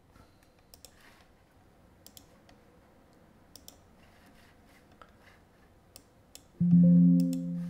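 Faint scattered computer mouse clicks, then near the end a loud, low musical tone, like a single plucked note with a few overtones, that rings for about a second and fades.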